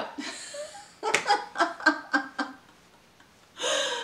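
A woman laughing: a run of about half a dozen quick laugh pulses starting about a second in, then a breathy laugh near the end.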